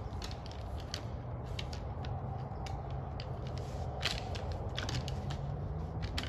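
Two white-tailed bucks fighting with locked antlers: irregular sharp clacks and rattles of antler on antler, the loudest about four seconds in, over a steady low background hum.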